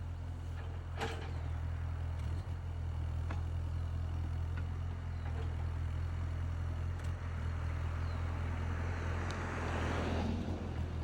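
Excavator's diesel engine running steadily under load, with a sharp click about a second in and a swelling rush of noise near the end.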